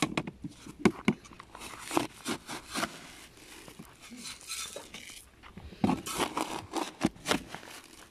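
A plastic scoop digging into coarse de-icing rock salt in a plastic bucket and flinging it out: a string of short scraping, crunching rustles with gaps between them.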